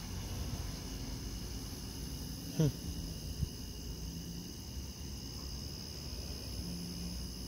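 Steady night insect chorus, several high chirring tones held throughout. About two and a half seconds in, a brief sound sweeps quickly downward in pitch, the loudest moment, followed by a short knock under a second later.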